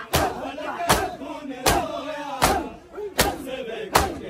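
Matam: a group of mourners striking their chests in unison, six sharp slaps evenly spaced about three-quarters of a second apart, keeping time for a chanted noha whose voices fill the gaps between strokes.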